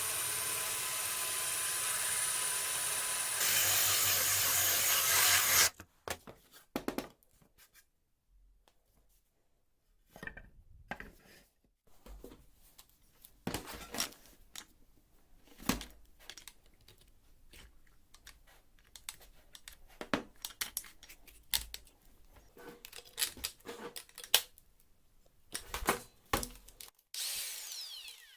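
A power tool runs steadily for about six seconds, getting louder about halfway through, then stops abruptly. Scattered clicks and knocks of workshop handling follow, with a brief burst of tool noise near the end.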